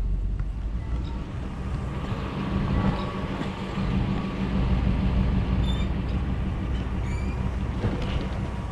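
Pickup truck towing a jet-ski trailer, driving slowly: a steady low rumble of engine and tyres, heard through the open passenger window.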